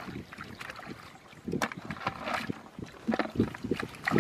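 Hands splashing and sloshing through shallow muddy water while groping for fish, in irregular bursts, loudest near the end.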